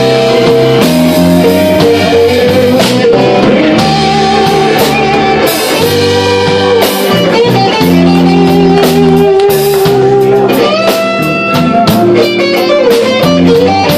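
Live blues band playing, led by electric guitar with long held notes that waver in pitch, over bass, drum kit with cymbals, and keyboard.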